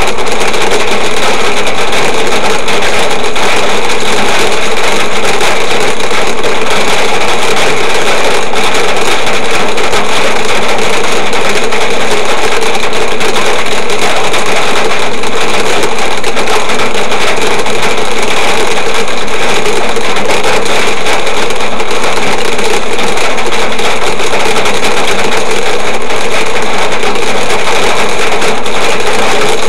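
Torrential cloudburst pelting the car's roof and windshield, heard from inside the cabin: a dense, steady, very loud clatter of countless drops that never lets up.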